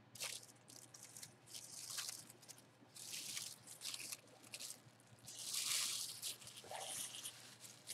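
Crumpled white packing paper rustling and crinkling as it is handled, in a string of irregular short bursts, the longest a little past the middle.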